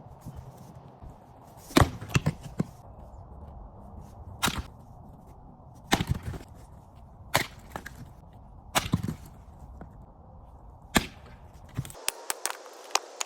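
Wood being chopped: a series of sharp strikes, roughly one every one to two seconds, some in quick pairs, with a burst of small splintering clicks near the end.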